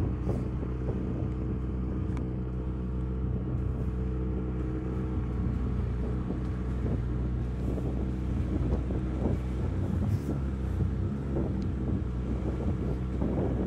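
Boat's outboard motor running steadily, with wind buffeting the microphone.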